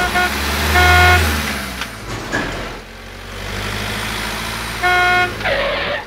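Cartoon vehicle sound effects: horn toots, a brief one at the start, a longer one about a second in and another near the end, over a low engine rumble.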